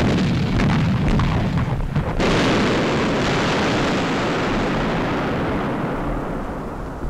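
Artillery fire on a wartime film soundtrack: a low rumble, then about two seconds in a sudden loud blast that rumbles away slowly over several seconds.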